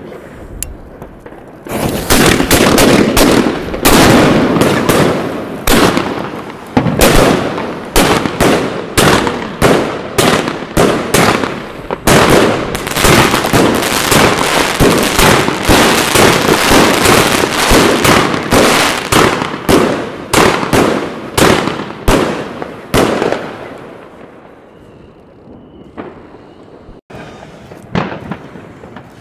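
Evolution Fireworks 'The Golden Age' 160-shot cake firing: a rapid, continuous volley of launches and breaking shells begins about two seconds in and stops about 23 seconds in. Near the end there is one more sharp bang.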